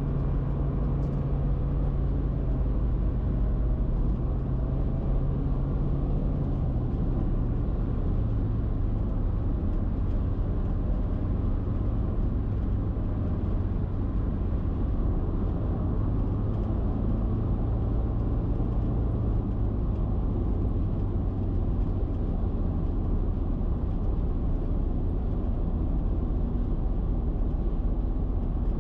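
Car cruising at expressway speed: steady road and engine drone with a low hum that drops slightly in pitch about seven seconds in.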